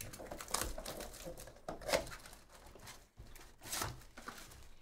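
A sealed trading-card hobby box being torn open, its plastic shrink-wrap crinkling and the cardboard ripping in several short rips, the loudest about two seconds in.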